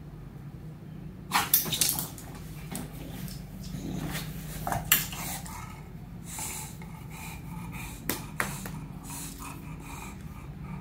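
English bulldog puppy making dog sounds as it shifts about beside its owner, with a few short sharp knocks: a cluster about a second and a half in, another near five seconds and two more about eight seconds in.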